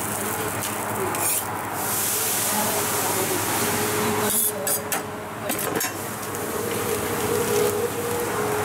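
Steel spatula scraping and sweeping across a hot flat-top dosa griddle, with a steady hiss from the hotplate. A low steady hum runs underneath.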